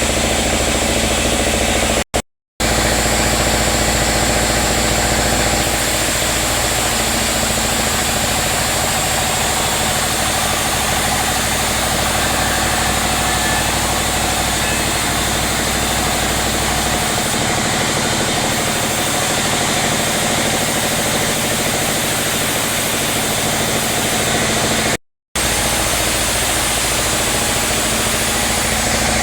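Sawmill machinery running steadily, a continuous loud engine-driven saw noise, cutting out briefly twice: about two seconds in and near the end.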